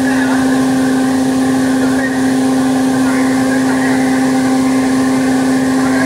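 Air-conditioning system of a Sany crane running while it is recharged with refrigerant: a steady machine hum with one strong even tone and a hiss over it, unchanging throughout.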